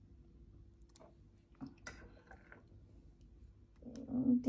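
A few faint, scattered clicks and light taps as chopped apple pieces are set down in a glass bowl, over a quiet room with a low steady hum. A voice starts near the end.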